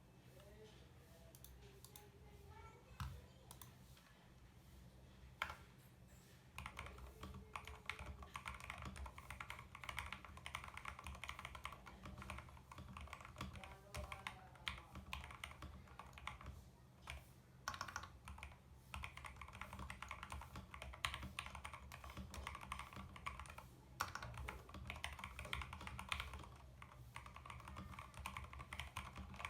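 Typing on a CIY Tester 68, a budget 68% mechanical keyboard: keystroke clicks, sparse at first, then a dense, steady run of typing from about six seconds in.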